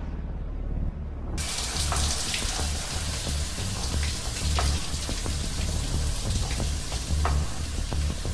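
Showers running: a steady hiss of spraying water that starts about a second and a half in, with faint drips and splashes through it. Under it runs a low, pulsing bass throb from the music score.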